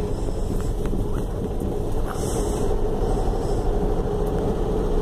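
1965 Volkswagen Beetle 1200's air-cooled flat-four engine running steadily while the car is driven, heard from inside the cabin along with road noise.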